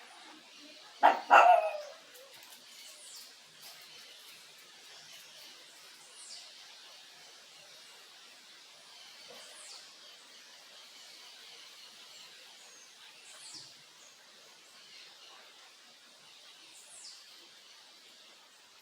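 A dog barks twice in quick succession about a second in. After that a bird repeats a short high call every three to four seconds over the steady hiss of a creek.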